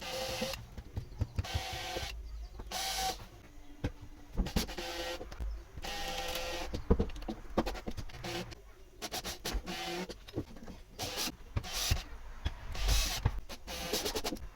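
Small electric motor whirring in repeated short bursts, with sharp clicks and knocks between them.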